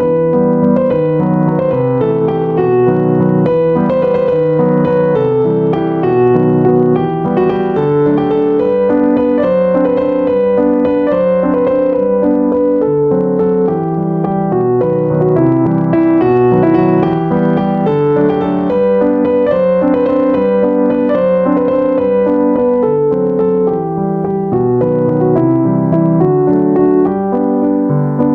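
Background piano music: a steady stream of gentle piano notes.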